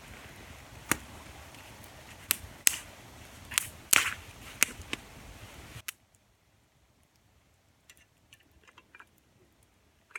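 Wood campfire crackling, with half a dozen sharp pops over the first six seconds. The sound then cuts off suddenly, leaving only a few faint small clicks.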